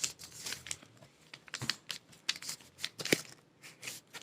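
A sheet of paper being handled, folded and creased, with short irregular crinkles and rustles.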